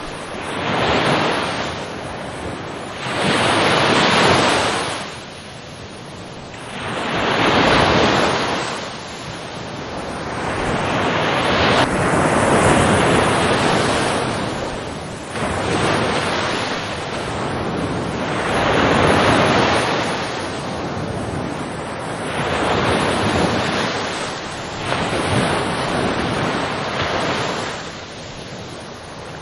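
Ocean waves breaking and washing on shore, a wide rushing wash that swells and falls back every three to four seconds.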